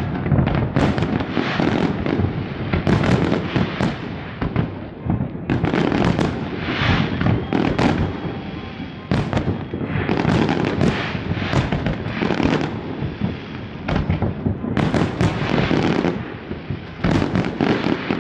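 Fireworks display: a dense, continuous barrage of bangs and crackling, easing briefly about five, nine and fourteen seconds in before picking up again.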